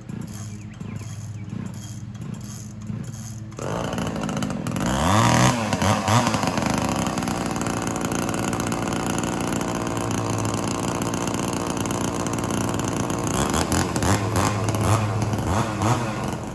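Ported 58 cc two-stroke chainsaw with a 28-inch bar idling, then revved up about four seconds in and held at high revs, as when it is working through a cut. Near the end the revs rise and fall.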